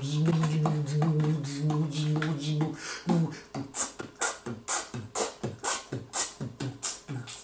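Beatboxing: a steady low hummed note held for nearly three seconds, then a quick even beat of vocal kick and snare sounds, nearly three a second.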